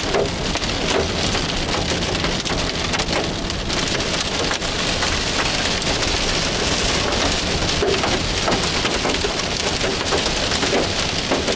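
Heavy rain pelting a moving car, heard from inside the cabin: a steady, dense patter of drops on the roof and windshield.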